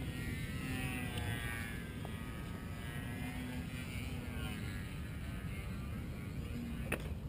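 Distant electric RC foam plane's motor and propeller whine, gliding up and down in pitch as the plane flies overhead, over a steady low rumble.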